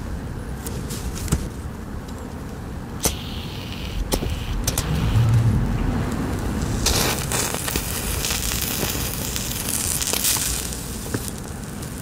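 A taped bundle of wooden matches flaring up: the match heads catch with a hiss lasting about three and a half seconds, after a few sharp clicks.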